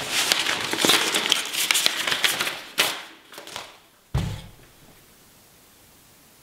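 A sheet of paper rustling and crackling as it is handled and put down, fading out with a few separate crinkles around three seconds in. About four seconds in there is one soft thud, followed by quiet room tone.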